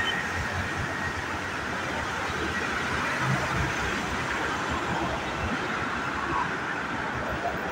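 Steady roar of road traffic from a busy highway below, with wind buffeting the microphone in uneven low rumbles.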